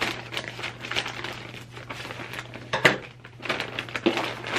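Plastic poly mailer bag being pulled open and rummaged through: irregular rustling and crinkling of thin plastic, with a sharper crackle about three seconds in.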